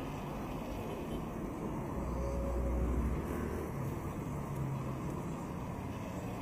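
Street traffic: car engines and tyres as a steady background, with a deeper engine rumble swelling about two to three seconds in.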